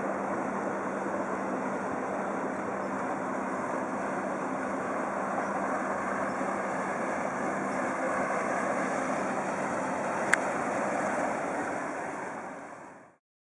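Steady wash of water and wind with a faint low boat-engine hum beneath it, and a single sharp click about ten seconds in. The sound fades out near the end.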